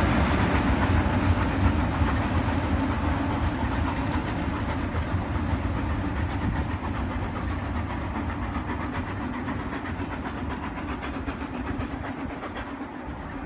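Passenger train with a Class 47 diesel locomotive on the rear, running away on the track: wheels clattering over the rails, the rumble fading steadily as it recedes.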